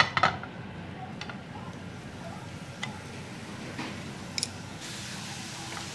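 Bell peppers stir-frying in a ceramic non-stick frying pan on a gas burner: a short clatter as the pan is set back down at the start, then a few light ticks, with the sizzle getting louder about five seconds in.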